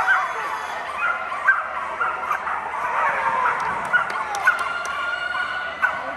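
Several flyball dogs barking and yipping, many short sharp barks in quick succession, while their handlers hold them back before their run.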